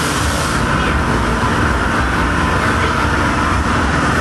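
Steady rumble and hum of a rotating children's helicopter ride in motion, heard from aboard.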